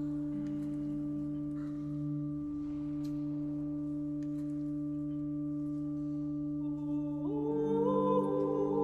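A vocal ensemble singing unaccompanied: a steady low drone of held notes, joined about seven seconds in by higher voices that slide upward in pitch and settle into chords.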